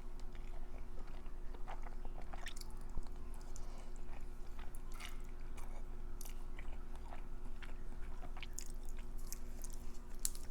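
Close-miked chewing of creamy uni (sea urchin) pasta: irregular soft, wet mouth clicks and smacks.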